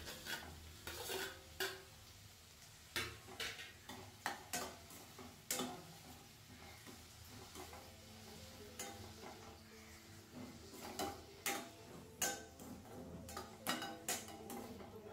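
Metal spatula scraping and knocking irregularly against a stainless steel kadai while stirring chopped onions and tomatoes as they fry, over a faint sizzle.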